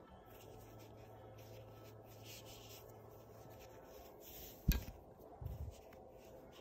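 Cotton macrame cord rubbing and sliding through fingers as it is wrapped tightly around a bundle of cords for a gathering knot. There is one sharp knock about two-thirds of the way through, then a soft low thump.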